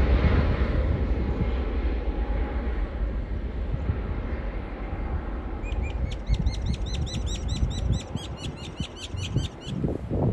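Jet airliner's engines at takeoff power, a broad rushing noise that fades as the aircraft climbs away. About six seconds in, a small bird sings a rapid series of sharp, falling high chirps for about four seconds, over gusty wind on the microphone.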